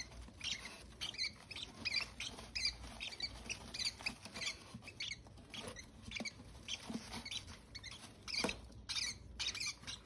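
Baby parrot chicks peeping: many short, high-pitched squeaks, several a second, with a faint rustle of the wood-shaving bedding as a hand picks through the chicks.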